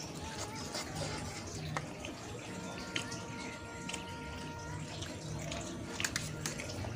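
Fried instant noodles being slurped and chewed, with short sharp clicks of forks and spoons against a metal tray, the sharpest clicks about six seconds in.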